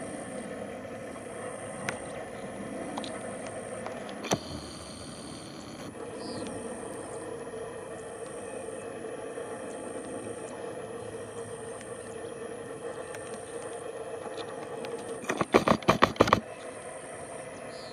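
Steady low outdoor hum with a faint high pulsing sound repeating about once a second, broken near the end by a quick run of loud clicks and rattling.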